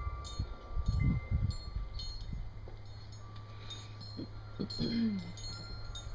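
Wind chimes ringing: scattered metal strikes with tones that hang on for a second or more, over a few low thumps and a low steady hum that starts about two seconds in.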